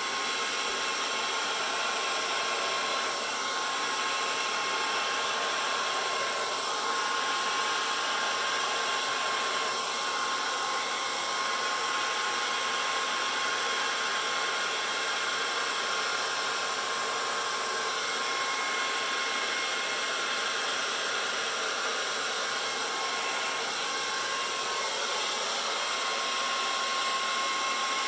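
Ordinary handheld hair dryer running steadily, a continuous rush of air with a thin steady whine, blowing out poured acrylic paint.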